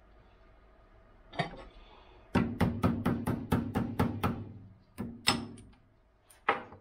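Hammer tapping a small hardwood (cherry) wedge into the top of a hammer handle set in the head's eye: one knock, then a quick run of about five taps a second for two seconds, then a few single taps. The wedge is not going in, which the owner thinks is because the handle is harder than the wedge.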